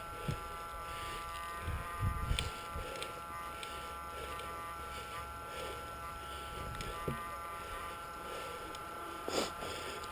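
A steady electrical whine made of several high tones, with a few soft low thumps and a short rustling burst near the end.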